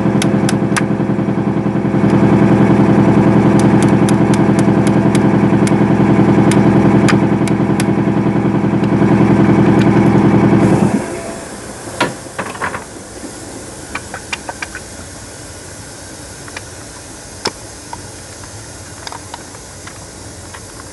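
Workshop air compressor running loudly and steadily with a regular ticking, shutting off about eleven seconds in; after that, scattered light clicks and taps of metal tools.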